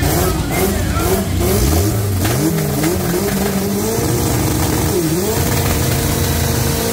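Drag-racing Chevette's Volkswagen AP four-cylinder engine revving in quick blips, then held steady at high revs with a brief dip about five seconds in, as the rear tyres start spinning for a burnout.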